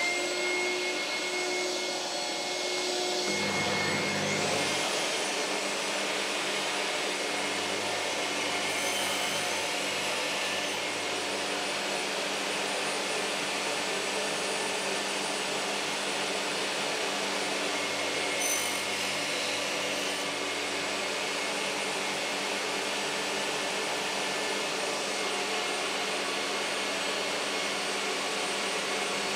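Table saw running steadily at full speed with a constant whine, just after spinning up; a second, lower machine hum joins about four seconds in.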